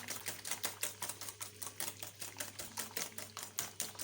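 Batter of eggs, sugar and oil being beaten by hand in a bowl, the utensil clicking rapidly and evenly against the bowl, about six to eight strokes a second.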